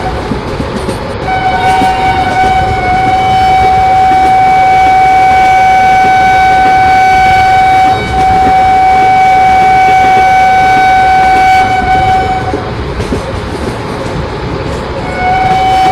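A train horn sounds one long, steady blast from about a second in, with a brief break about eight seconds in, over the rumble of a running train. The horn stops a few seconds before the end and starts again just before the end.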